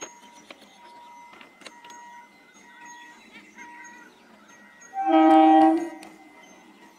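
Indian Railways EMU local train approaching and sounding its horn: one loud blast of about a second, about five seconds in. Before it, only a faint background with repeated high chirps and a few light clicks.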